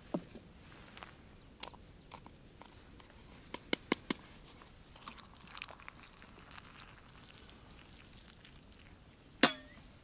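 Hot water poured from a camp kettle into a wooden kuksa cup over lemon slices, with scattered soft clicks and knocks of the handling, a quick run of sharp clicks about four seconds in, and a sharp knock with a short ring near the end.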